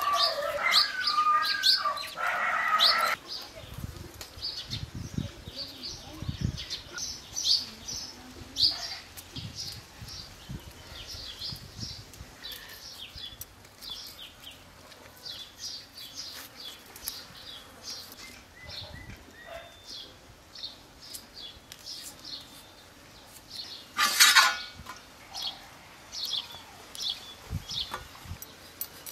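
Small birds chirping in short, high, repeated calls throughout. A louder animal call sounds in the first three seconds, and a brief loud burst comes about 24 seconds in.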